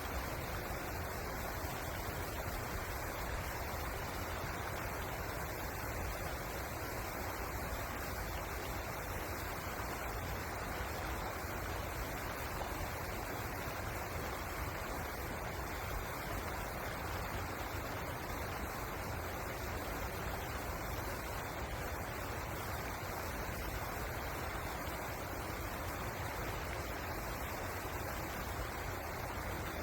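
River water rushing steadily over its bed, an even, unbroken wash of noise.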